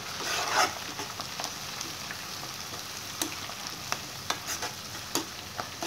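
Onions, fenugreek leaves and curry leaves sizzling in oil in a pan on a low flame while being stirred with a spatula, with a few sharp clicks of the spatula against the pan.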